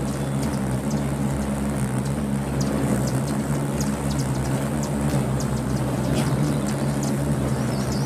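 A crowd of hummingbirds hovering around feeders, their wings making a steady low hum, with many short, high chip calls scattered throughout.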